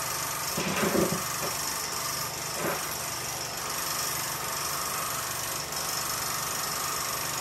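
16mm film projector running, a steady mechanical whir. A brief louder noise comes about a second in, and a smaller one just before 3 seconds.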